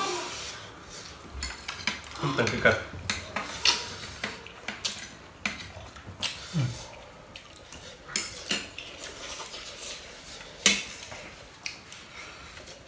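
Metal forks clinking and scraping irregularly against ceramic plates while noodles are twirled and eaten.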